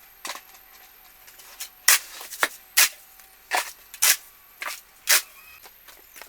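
A run of about eight short, sharp scuffs or scrapes at uneven intervals, the loudest in the middle.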